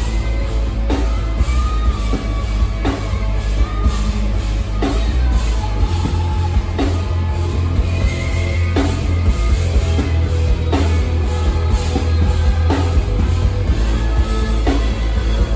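Metal band playing live, loud and dense, with heavy bass and distorted guitars and a drum hit about once a second.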